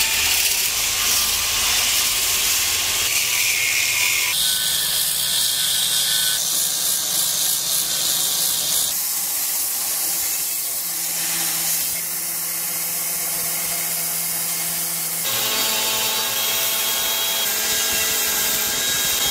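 Belt grinder running with a rough cast brass piece pressed against its sanding belt: a steady abrasive hiss over the motor's hum. The sound changes abruptly several times as the clips cut.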